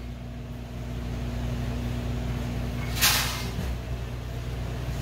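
Steady low mechanical hum with a brief hiss about three seconds in.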